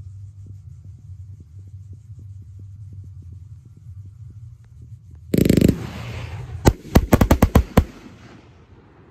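Aerial fireworks: a low steady hum, then about five seconds in a loud boom with a fading rumble, followed by a rapid string of about eight sharp bangs.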